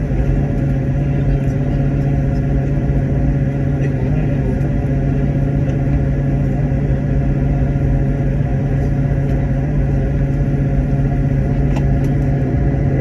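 Steady drone of aircraft engines and airflow inside a passenger plane's cabin in flight: a loud, even low hum with a few faint steady higher tones over it.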